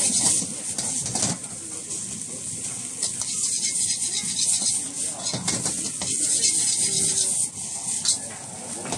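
Metal wok ladle scraping and clanking against the wok as noodles are stir-fried and tossed, repeated strokes over a steady high hiss of frying.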